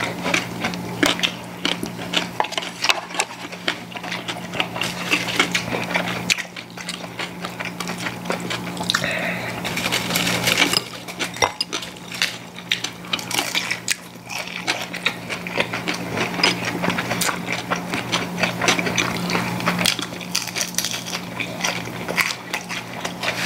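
Two people eating a meal of kimchi and fried mackerel: chewing and mouth sounds, with many irregular clicks of chopsticks against bowls and plates. A low steady hum runs underneath.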